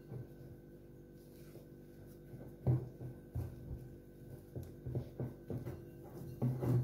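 Hands mixing and squeezing crumbly shortcrust dough in a glass bowl: irregular soft knocks and rubbing against the glass, thickest near the end. A steady low hum runs underneath.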